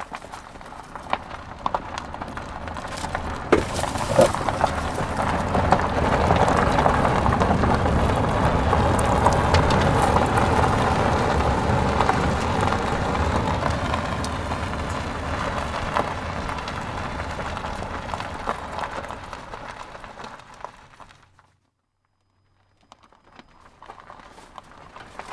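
Car tyres rolling over gravel with a steady crunching and crackling. The sound grows louder, holds, then fades away and stops about 21 seconds in. A second, quieter crunching pass starts near the end.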